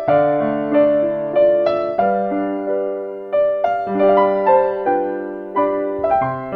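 Background piano music: gentle chords and melody notes struck about every half second and left to ring and fade.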